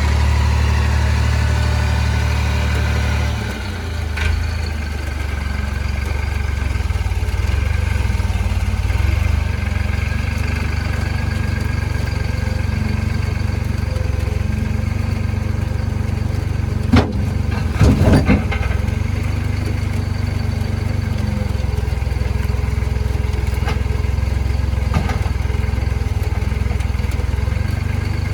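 Diesel engine of heavy machinery running steadily, its note shifting down about three and a half seconds in, with a few sharp knocks about two-thirds of the way through.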